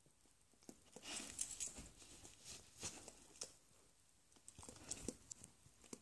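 Faint, scattered soft rustles and small clicks as a poodle and a rainbow lorikeet move about on a duvet, with a short cluster of rustling about a second in and a few more later.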